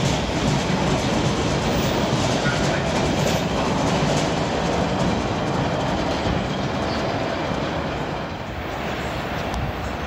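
MBTA Orange Line subway train pulling out of the station, its wheels and motors running on the rails in a steady rumble that eases off a little after about eight seconds as it moves away.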